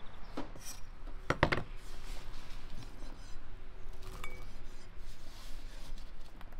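Handfuls of diced raw potato dropped into a glass bowl, the cubes clinking and tapping against the glass. The loudest clatter comes about a second and a half in, with lighter taps after.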